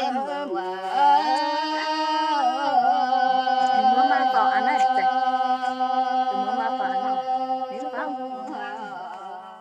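Red Dao (Iu Mien) women singing a traditional folk song together, unaccompanied, in long held notes that slide slowly between pitches and fade away near the end.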